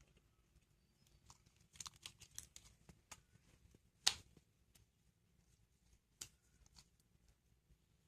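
Faint handling noises of slime-making materials: scattered small clicks and rustles, with one sharper tap about four seconds in.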